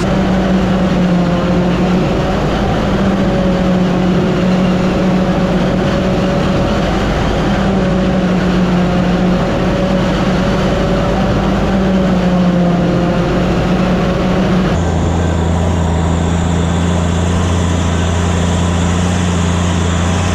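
Heavy diesel farm-vehicle engine running steadily. About fifteen seconds in, the sound changes abruptly to a deeper drone.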